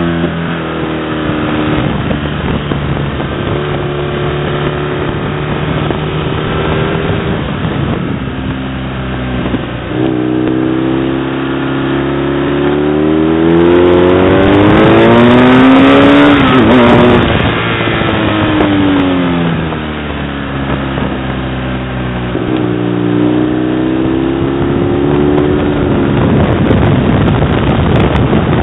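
Twin-cylinder sport motorcycle engine heard from on board, working hard through the corners: its pitch climbs under acceleration, peaks and turns loudest about halfway, falls away as it slows, then climbs again near the end.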